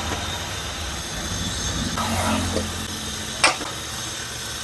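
Pieces of fried fish being dropped into a pot of boiling curry gravy on a gas stove, over a steady low rumble. A single sharp metallic clink comes about three and a half seconds in.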